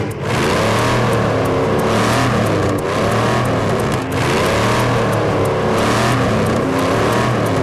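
Car engine revving hard, its pitch rising and falling over and over about every second and a half.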